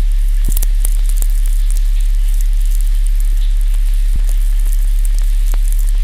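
A steady, deep low hum under a crackling, sizzling hiss, with scattered sharp clicks throughout.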